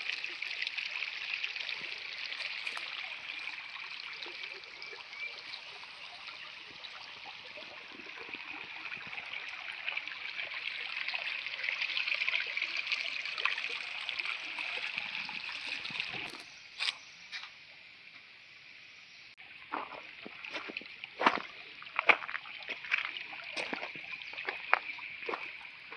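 Small shallow forest stream trickling over stones, a steady hiss of running water that fades after about sixteen seconds. In the last several seconds, scattered footsteps crunch on gravel.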